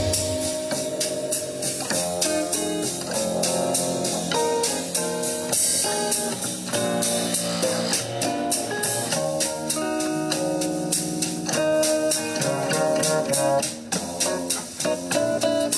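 Recorded music played back: guitar over a drum kit keeping a steady beat.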